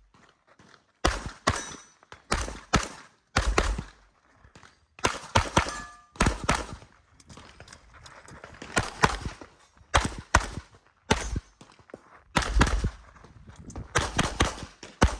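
Tanfoglio pistol fired rapidly, mostly in pairs and triplets of shots a fraction of a second apart, with short pauses of a second or two between groups, as in an IPSC practical shooting stage.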